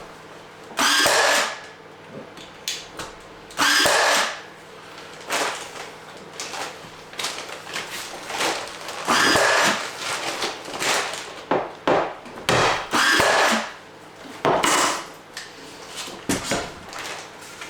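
Power drill running in about five short bursts of under a second each, with lighter knocks and clatter of work on wooden floorboards between them.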